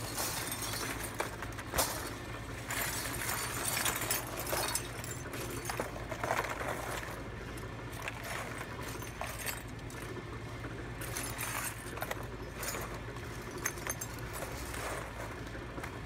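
Loose stripped copper wire strands handled with gloved hands on a cardboard-covered table: irregular clinking, jingling and rustling, over a steady low hum.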